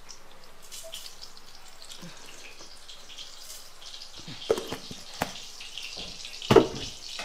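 Hot oil in a kadai on a gas stove hissing and sizzling, growing stronger after a few seconds. Three short knocks of utensils come in the second half, the loudest near the end.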